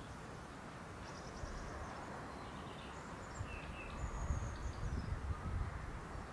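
Light wind blowing over grass, with gusts rumbling on the microphone that swell about four seconds in. Faint high chirps and short trills of small birds come through now and then.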